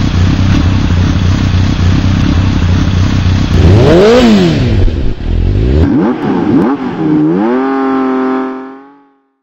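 Motorcycle engine sound effect: running with a rumble and hiss, then revved. The pitch climbs and falls about four seconds in, a few quicker revs follow, and a final high rev is held before it fades out near the end.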